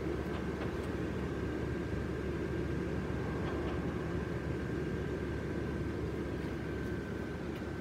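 Electric blower fans of air-filled yard inflatables running: a steady whir with a thin, constant high whine above it.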